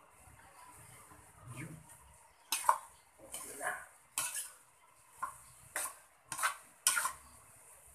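A metal spoon stirs a thick mix of jackfruit, coconut milk and anchovies in a wok, scraping and clinking against the pan in a series of strokes about every half second, starting about two and a half seconds in.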